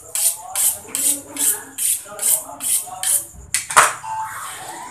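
Knife blade working in quick, even strokes, about two and a half a second, each a short hissing scrape; the strokes stop a little after three seconds in, followed by one sharp knock.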